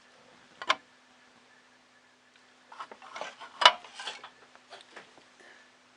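Small hard plastic and metal parts of a 3D printer kit being handled: a single click about a second in, then a run of clicks and knocks with one sharp knock in the middle, over a faint steady hum.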